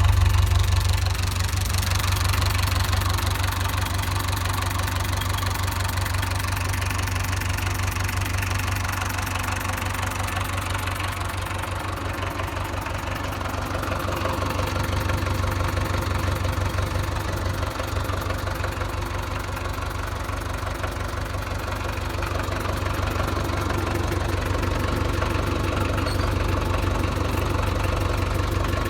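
Massey Ferguson 130 tractor's four-cylinder diesel engine idling steadily, warm and running smoothly.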